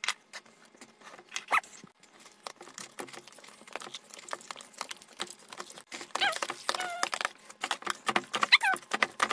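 Handfuls of slime being squished and mixed together in a bowl: a dense run of wet clicks and pops, and from about six seconds in, short squeaky chirps as trapped air squeezes out.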